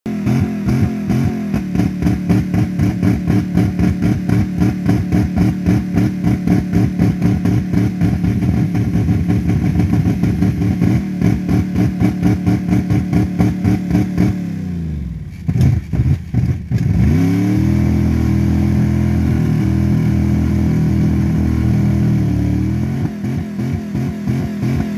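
1999 Dodge Ram's 318 V8 running with no coolant, pulsing a few times a second. About fourteen seconds in the revs fall sharply and it sputters almost to a stall, then it revs up and holds a smooth, higher speed before dropping back to the pulsing near the end.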